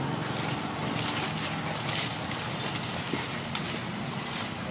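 Steady outdoor background noise: an even hiss over a faint low hum, with a single sharp click about three and a half seconds in.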